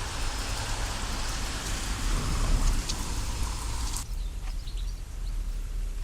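Rain falling with a steady hiss, which drops away abruptly about four seconds in, over a low rumble.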